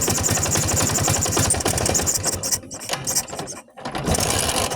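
Vespa two-stroke scooter engine running with fast, even firing, turning uneven with brief dips about halfway through. It is being run as a test after the carburettor mounting nuts were tightened, the looseness of which had let it make a squeaking 'cuit' noise.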